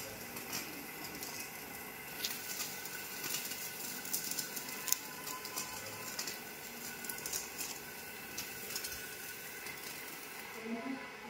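Film slitting and rewinding machine running on clear polyester film. It gives a steady hum with faint thin whine tones, and irregular crackling ticks that come thickest through the middle.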